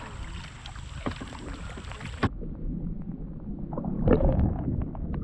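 River water splashing and lapping right at the microphone. About two seconds in, the sound turns abruptly muffled as the camera goes underwater, leaving a low rumble with scattered clicks and knocks that get louder near the end.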